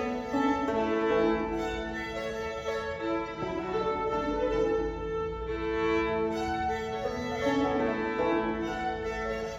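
Two fiddles and a five-string banjo playing an old-time fiddle tune, the fiddles bowing the melody over a steady drone note.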